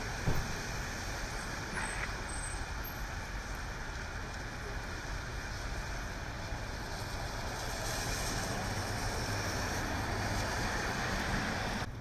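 Heavy rain falling on a city street with traffic: a steady hiss of rain and wet-road noise over a low engine rumble, swelling a little in the last few seconds. A brief knock sounds just after the start.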